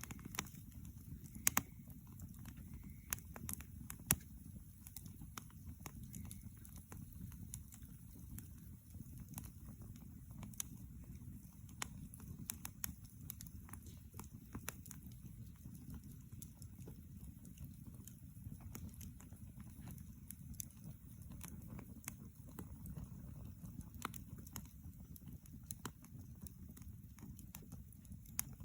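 Wood campfire burning, with irregular sharp crackles and pops from the burning logs over a low steady rumble.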